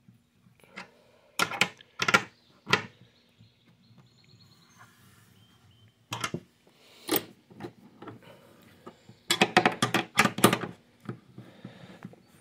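13 mm wrench tightening acorn nuts on a backrest bracket: scattered sharp metal clicks and knocks, with a quick run of clicks near the end.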